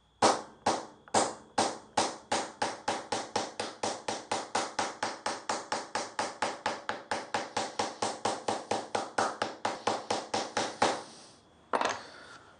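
Homemade pattern punch, a pan head metal screw set in the end of a timber block, struck repeatedly to texture a wooden board. A few spaced taps, then a steady run of quick sharp taps, about four or five a second, stopping about eleven seconds in, with one last tap near the end.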